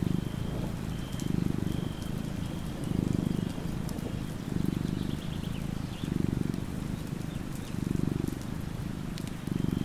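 Sleeping tabby cat purring, the purr swelling and fading with each breath about every second and a half, over a faint patter of rain.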